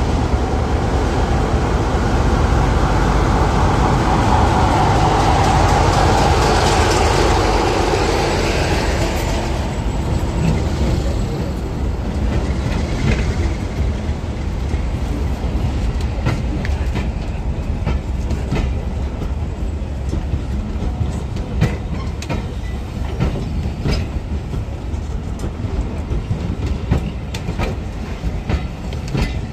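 Diesel-hauled train running on the line, with a low steady rumble. A louder stretch of noise comes in the first several seconds; from about ten seconds in, the wheels click over the rail joints.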